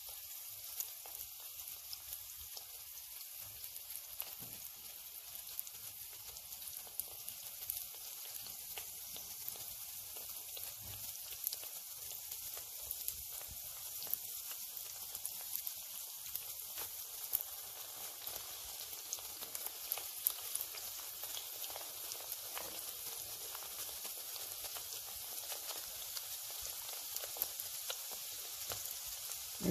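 Diamonds of leavened gnocco fritto dough deep-frying in peanut oil at about 165 °C: a steady high sizzle with scattered small crackles as the dough puffs up.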